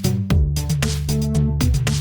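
Electronic background music with a steady beat and sustained bass notes.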